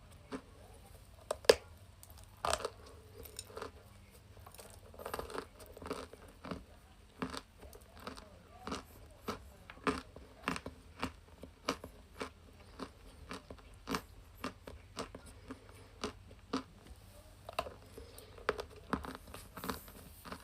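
Sticks of chalk crunching close to the microphone: sharp, irregular crunches, about one or two a second, some louder than others.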